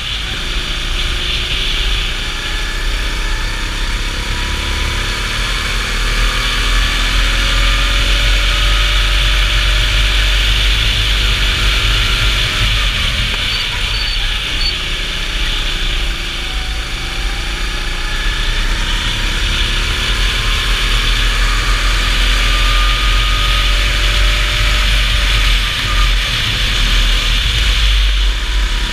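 Racing go-kart engine heard onboard, its pitch rising and falling as the kart accelerates and slows for corners, over a steady hiss.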